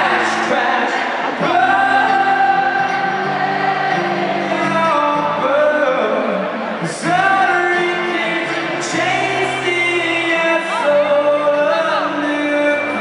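Live music: a man's voice singing long held notes over an acoustic guitar, heard through the loud PA of an open-air concert.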